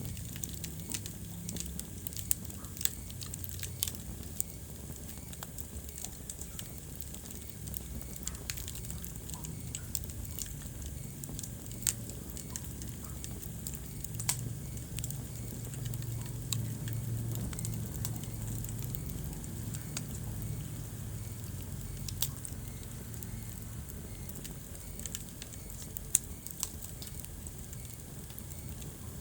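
Wood fire crackling in a fireplace: irregular sharp pops and snaps over a low, steady rumble of the flames. One of the loudest pops comes near the end.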